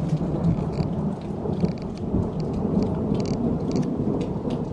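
Thunder rolling after a nearby lightning flash, a continuous low rumble that lasts the whole time.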